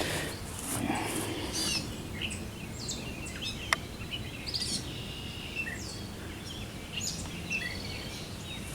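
Several birds calling and singing, short chirps and whistles, some falling in pitch, over a steady low background hum, with a single sharp click about four seconds in.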